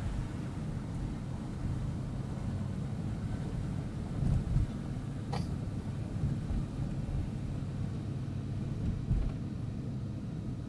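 Engine and road noise inside a moving vehicle's cabin, a steady low rumble with a couple of bumps and a brief squeak about halfway through.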